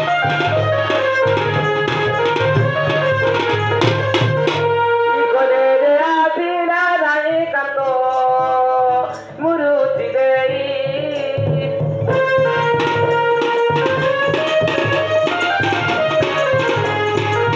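Live Indian folk dance music: a hand drum keeps a steady beat under a melody of held notes. Around the middle the drum thins out while the melody slides and wavers in pitch, then the drum comes back in.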